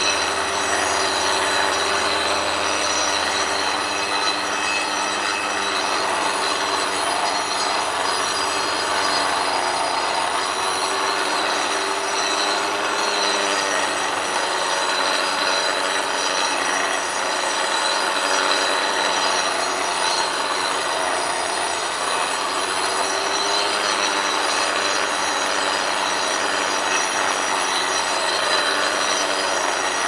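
Handheld power saw dry-cutting a stone block: a loud, steady grinding screech with a high whine over it as the blade cuts through the stone.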